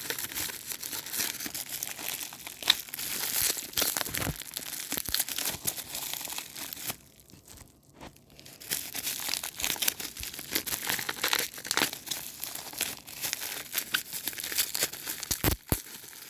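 Bubble wrap being unwrapped by hand: plastic crinkling and rustling with sharp crackles, pausing for about a second and a half midway.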